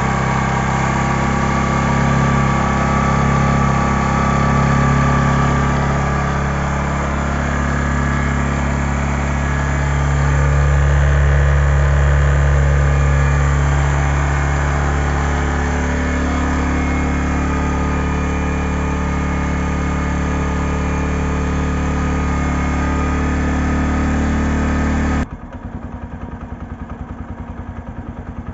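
Bajaj Platina's single-cylinder DTS-i engine running at a loud, raised idle on a cold start, held up by its automatic choke. About 25 seconds in it drops suddenly to a much quieter, even idle with a steady exhaust beat, the cold-start phase over.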